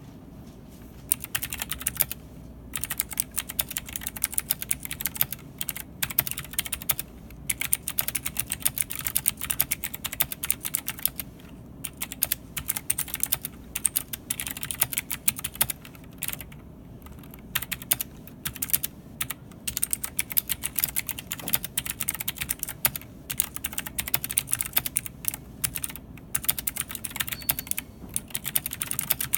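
Typing on an Ajazz AK33 mechanical keyboard with Blue Zorro switches and DSA-profile keycaps: fast runs of sharp keystroke clicks broken by a few short pauses.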